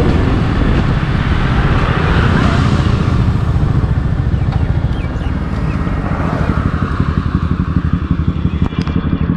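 Motorcycle engine running while riding, a low, even pulsing under a rushing noise of wind and road. The engine's pulses stand out more clearly in the second half.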